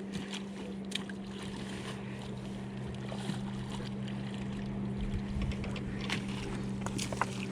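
Steady hum of a boat engine running on the river, holding one pitch, with a few light clicks and taps over it.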